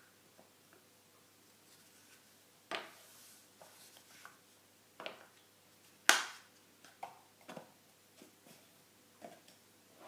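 Small walnut and boxwood cases and their box being handled on a wooden tabletop: a few scattered knocks and taps, the sharpest about six seconds in.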